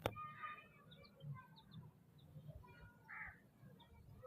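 Baby chicks peeping faintly, scattered short high calls, with a sharp click at the very start.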